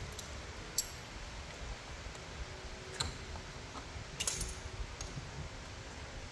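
Light metallic clinks from a hand wrench and the nose-wheel parts being handled: one about a second in, one about three seconds in and a short cluster just after four seconds, over a low steady rumble.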